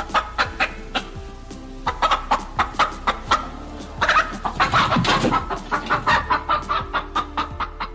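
Chickens clucking in quick repeated notes over background music, with a louder, longer call about four seconds in.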